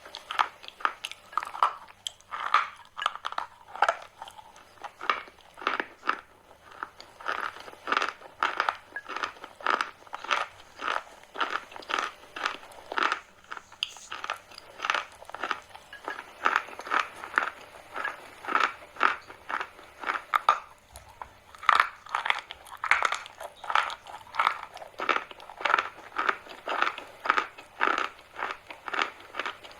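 Chalk being bitten and chewed, crunching over and over at about two crunches a second.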